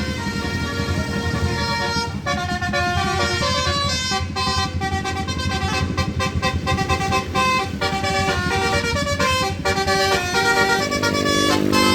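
A bus's Basuri telolet horn playing a quick tune of shifting pitched notes, with the bus engine running underneath.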